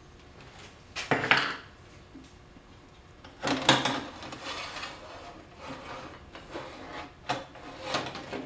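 A saw file rasping across the teeth of a Disston D8 rip saw in a few separate strokes. Two stronger strokes come early, then several lighter ones.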